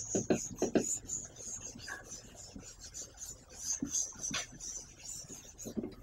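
Board eraser rubbing chalk off a chalkboard in quick, repeated wiping strokes, a dry scraping rasp.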